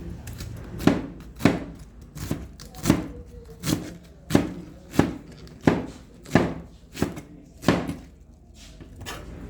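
Kitchen knife chopping vegetables on a cutting board: about eleven slow, even chops, roughly one every 0.7 seconds, stopping near the end.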